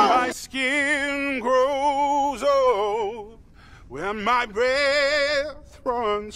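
A solo voice singing slow, long-held notes that waver in pitch, in phrases of about a second with short breaks between them.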